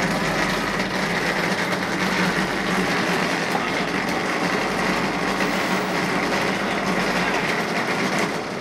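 Electric automatic wall-rendering machine running as it climbs its mast and plasters the wall: a steady mechanical whir with a constant hum underneath.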